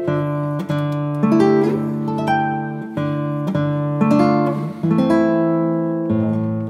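Background music: a melody of plucked notes, each starting sharply and fading, over a held low note.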